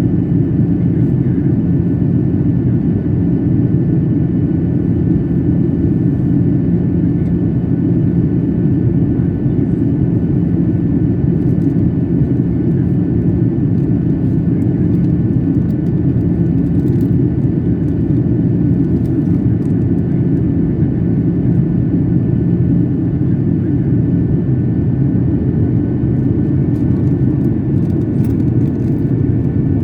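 Airliner in flight heard from inside the passenger cabin: a steady, loud low rumble of engines and airflow with a faint steady high whine.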